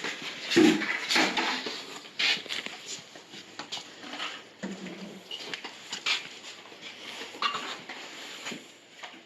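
A dog barking and making short sounds in irregular bursts, the loudest about half a second in.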